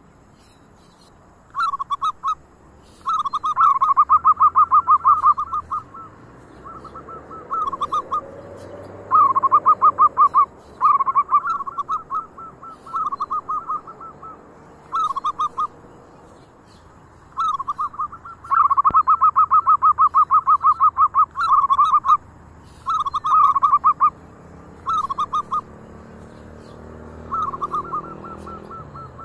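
Zebra dove (perkutut) cooing: phrases of rapid, stuttering rolled notes repeated with short pauses, some brief and two running on for several seconds.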